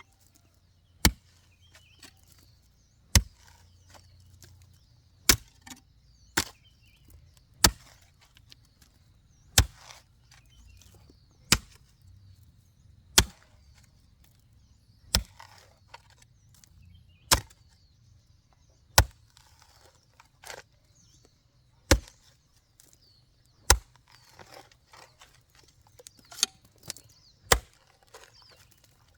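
Chopping with a hand blade: a steady series of single sharp chops, roughly one every one to two seconds.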